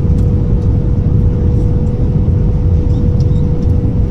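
Airbus A321 cabin noise heard from a window seat over the wing on final approach with flaps extended: a steady, loud rumbling roar of the engines and airflow, with a steady mid-pitched hum and a few faint ticks.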